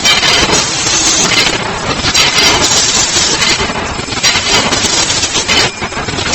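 Automatic mesh bag cutting and sewing machine running: loud, continuous mechanical clatter with recurring surges of hiss.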